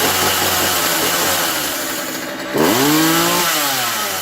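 Small two-stroke chainsaw engine running, with one quick rev about two and a half seconds in, the pitch sweeping up and then sliding back down.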